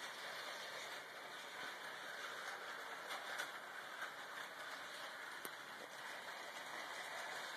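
Bachmann Hogwarts Express electric model train running around its track: a faint, steady whir of the motor and wheels.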